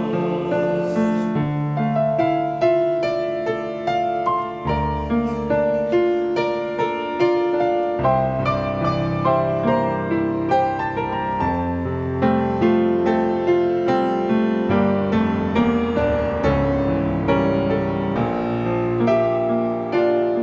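Piano playing a slow, gentle instrumental passage of the hymn's accompaniment, with no singing.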